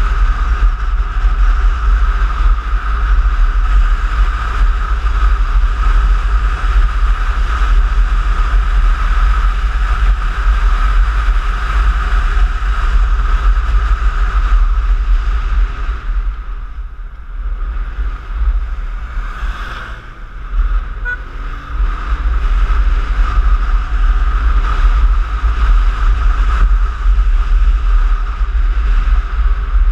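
Onboard riding noise from a Piaggio X9 maxi-scooter: heavy wind rumble on the action camera's microphone, with the scooter's engine running steadily underneath. The noise eases for a few seconds about halfway through, then builds back up.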